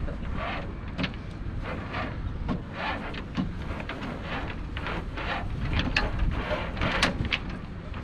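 Steady low rumble of wind on the microphone, over short repeated scrapes and rustles of rope being pulled through a lashing.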